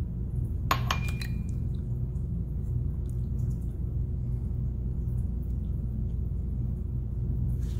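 Steady low hum of background room noise, with one short, light clink, briefly ringing, less than a second in.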